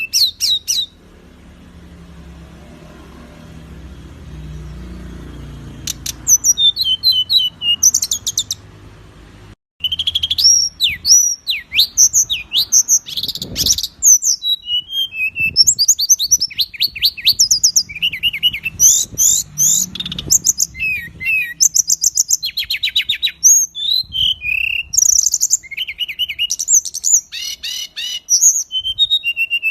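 Songbird singing fast, dense phrases of high whistles, rapid trills and rough notes. For the first few seconds only a faint low rumble is heard, then the song starts, breaks off for a moment about ten seconds in, and carries on densely to the end.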